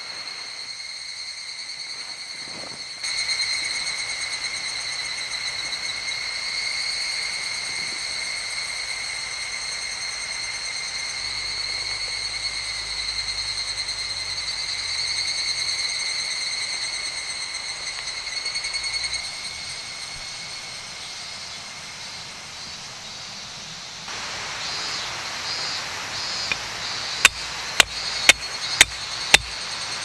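Insects trilling steadily, one high, even tone. Near the end come five sharp knocks about half a second apart.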